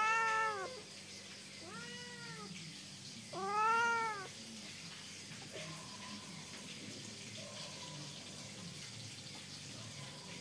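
Domestic cat meowing three times, each call rising then falling in pitch; the middle one is softer. The cat is begging for a share of the fish.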